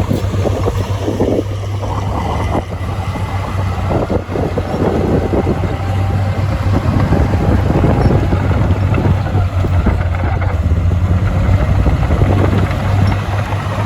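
Heavy diesel engine of earthmoving machinery running steadily under load, with a constant low hum and a rough mechanical clatter above it.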